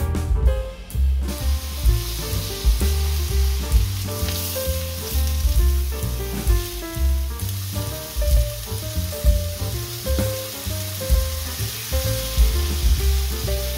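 Sliced beef brisket sizzling in a frying pan as it fries in its own rendered fat, turned with wooden chopsticks. The sizzle starts about a second in, under background music with a steady bass beat.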